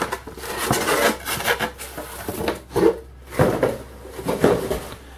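Cardboard shipping box being handled and opened: flaps folded back and a comic book slid out, cardboard rubbing and scraping in a string of irregular bursts with a few sharper knocks.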